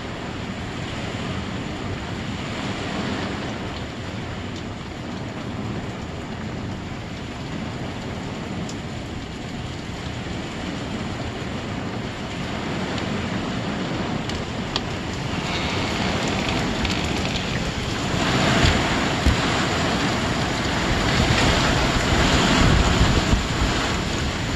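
Thunderstorm wind and heavy rain: a steady rushing hiss that grows louder about two-thirds of the way through, with gusts buffeting the microphone.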